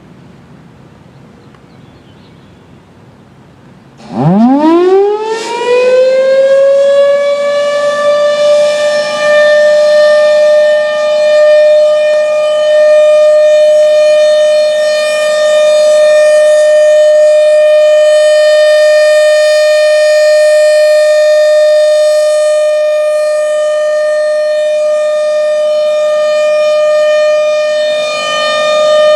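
Federal Signal Thunderbolt 1000 tornado siren starting up about four seconds in: it winds up fast, rising in pitch, then holds one loud, steady tone. This is the routine monthly test of the outdoor warning siren.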